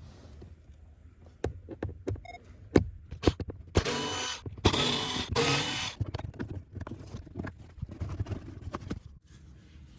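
Scattered clicks and knocks of parts and tools being handled, with about two seconds of hissing in three short bursts in the middle.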